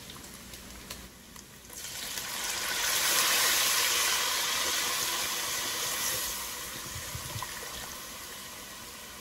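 Water poured from a bottle into a hot cast-iron pot of frying bacon, onion and butter. A low sizzle jumps to a loud steam hiss about two seconds in as the water hits the hot fat, then slowly dies down.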